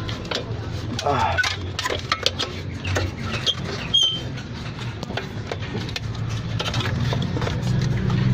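Irregular metallic clinks and taps of tools and parts being handled, over a steady low hum.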